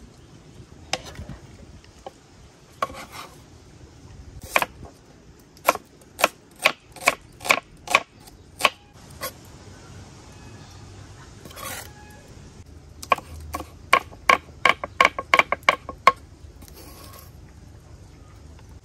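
Kitchen knife chopping vegetables on a wooden cutting board: sharp chops, a few scattered at first, then a run of about two a second. Later comes a quicker run of about three a second as green chilies are cut.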